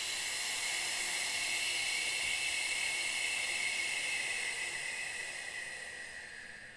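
A person's long hissing 'shh' exhale, the sounded out-breath of a yoga breathing practice. It holds steady, then fades and drops slightly in pitch near the end.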